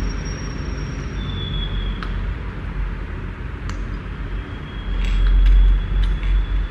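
Low steady rumble that swells about five seconds in, with a few sharp clicks of small plastic building bricks being handled and pressed together.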